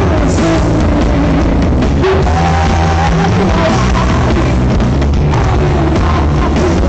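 Live rock band playing loudly and without a break.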